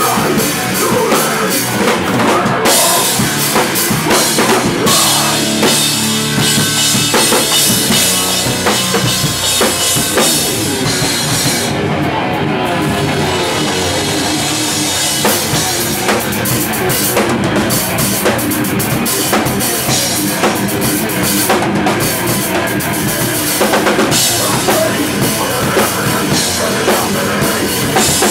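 Live hardcore punk band playing loud and fast: pounding drum kit with bass drum, snare and crashing cymbals over distorted electric guitars, heard from right beside the drums.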